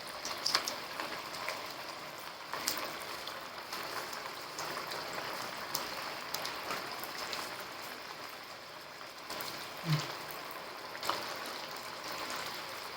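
Moong dal vadas deep-frying in hot oil: a steady sizzle with scattered pops and crackles, and a soft knock about ten seconds in.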